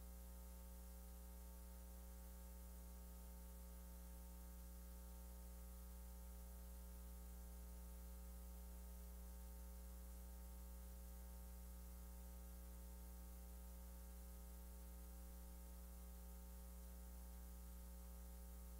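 Near silence: a steady electrical mains hum with faint hiss.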